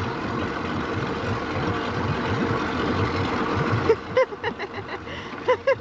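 Motorboat engine running, with rushing water and wind noise, for about four seconds; then the noise drops and a few short high-pitched sounds follow.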